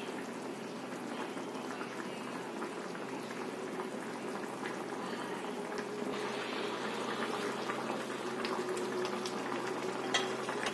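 Aloo gobhi gravy bubbling as it simmers in a kadhai on the stove: a steady bubbling with many small pops. There is one short tap about ten seconds in.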